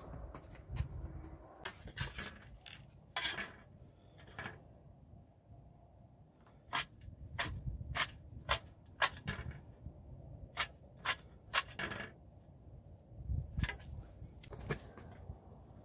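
Kitchen knife chopping fresh herbs on a steel tray: sharp, irregular clicks of the blade striking the metal, about two a second at their busiest. Near the end the blade scrapes across the tray, gathering the chopped herbs.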